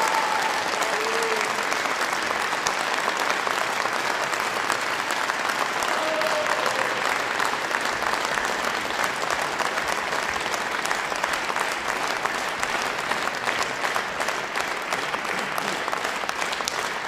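Concert audience applauding steadily, a dense clatter of many hands, with a few brief voices calling out near the start and again about six seconds in.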